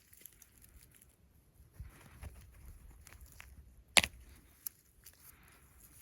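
Jerusalem artichoke tubers being dug out of the soil: faint rustling and scraping of earth and roots, with a sharp click about four seconds in and a smaller one shortly after.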